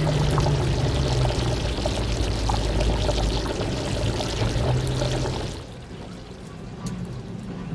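Liquid pouring steadily into a container, stopping about five and a half seconds in.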